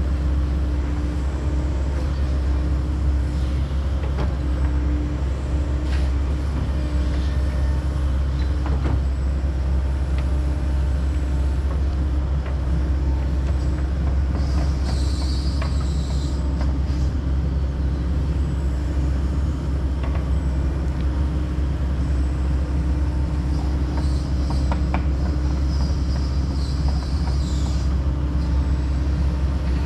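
Kobelco SK140 tracked excavator's diesel engine running steadily under working load, with a deep hum throughout. Scattered knocks come from the machine as it works, and high-pitched squealing rises twice, about halfway through and again near the end.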